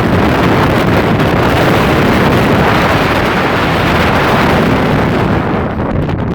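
Strong wind buffeting the microphone, a loud steady rush that swells in the middle and eases a little near the end.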